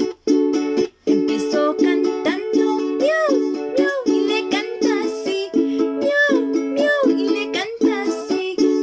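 Children's song music without vocals: steady repeated chords with short notes over them that rise and fall in pitch.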